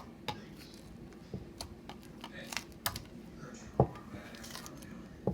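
Slime being worked by hand, giving irregular small clicks and pops, with one louder tap about four seconds in.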